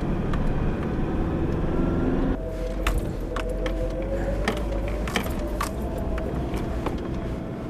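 Four-wheel drive running along a dirt track, heard from inside the cabin: steady engine and tyre rumble. From about two seconds in, loose items rattle and click repeatedly over a steady whine.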